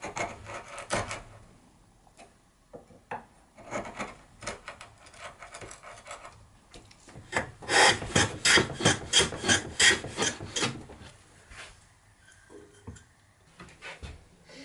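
Steel hand tools cutting wood: a few short chisel paring cuts, then a quick run of about ten hand-plane strokes, roughly three a second, shaving a wooden piece.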